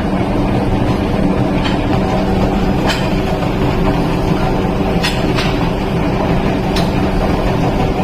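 Steady loud drone of workshop machinery with a low hum, broken by five short sharp metallic knocks at uneven intervals.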